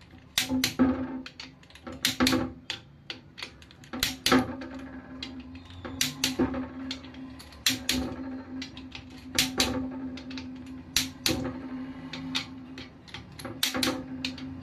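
Torque wrench ratcheting on the crankshaft main bearing cap bolts of a Fiat 1.3 Multijet diesel engine, with sharp clicks, often in pairs, every second or two and fainter ticks between, over a steady low hum.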